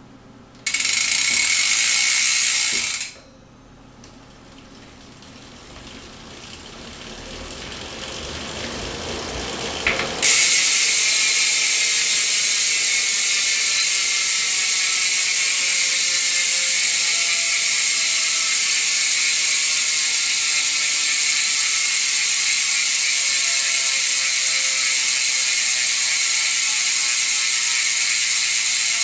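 Novatec D902SB-B12-11S rear hub's 40-engagement-point freehub ratcheting as the wheel coasts. A short loud buzz near the start is followed by a few seconds of quieter, building whir, then a loud steady buzz from about a third of the way in that slowly drops in pitch as the wheel slows.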